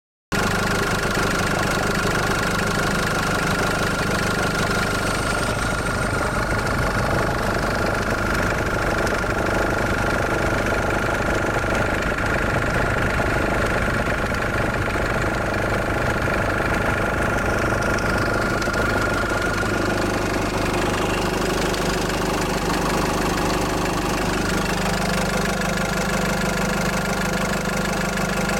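Mahindra Xylo engine idling steadily, heard at the engine bay, with a hollow-type noise in the background that the owner takes for abnormal.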